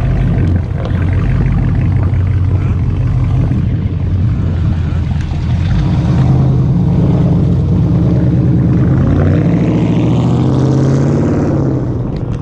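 Loud car engine running with a deep, steady note; near the end its pitch rises.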